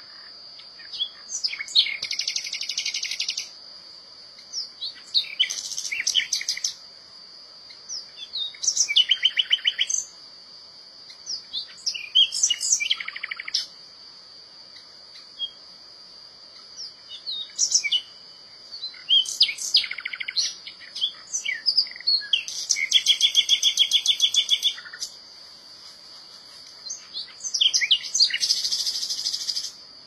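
Common nightingale singing: about eight phrases of rich whistles, fast repeated notes and rattling trills, each a second or two long, with short pauses between them. A steady high-pitched whine runs underneath throughout.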